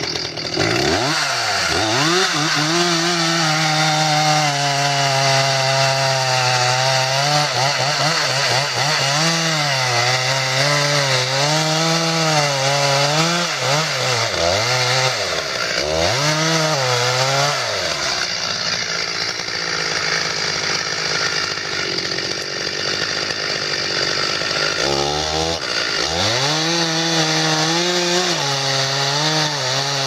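Two-stroke chainsaw running at high revs while cutting into a large tree trunk. The engine pitch drops repeatedly as the chain bites into the wood and recovers as the load eases; it holds steadier for a stretch past the middle before dipping and rising again.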